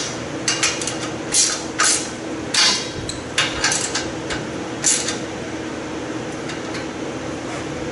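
Metal clinks and short rattling bursts of a wrench working a bolt as a steel tube race-car bumper is bolted onto the frame, coming in quick clusters during the first five seconds and then easing off.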